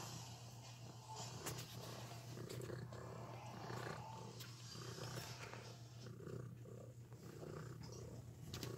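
Nursing tabby mother cat purring steadily, a low rumble that pulses about twice a second, with a few faint clicks.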